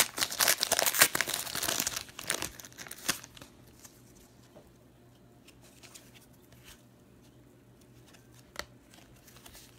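Plastic wrapping on sealed trading card packaging being torn open and crinkled for about three seconds, then only a few faint handling clicks.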